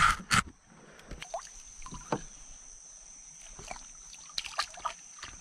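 Handling noise from a largemouth bass being held against the camera: two loud bumps right at the start. Then scattered small knocks and light splashing as the bass is lowered into the water beside the kayak and released. A steady high-pitched insect drone runs underneath.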